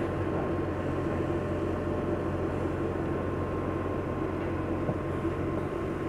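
AirSep NewLife oxygen concentrator running: a steady compressor hum with a faint constant whine.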